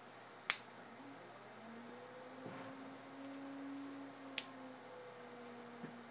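Electric pottery wheel motor humming, its pitch rising as the wheel head spins up a couple of seconds in and shifting again later. Two sharp clicks, the first about half a second in and the loudest sound here, the second at about four seconds, then a faint tap near the end.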